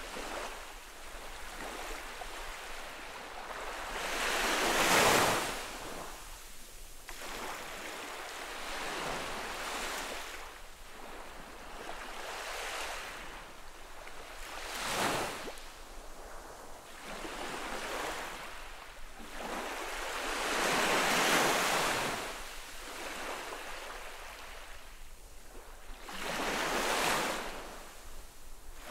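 Small ocean waves lapping onto a sandy beach: a soft steady hiss of water, with four louder washes several seconds apart as waves spill up the sand, each swelling and fading over a second or two.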